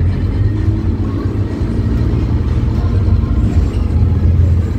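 Scania K270UB bus's rear-mounted diesel engine running as the bus drives along, heard from inside the cabin near the back: a steady low rumble.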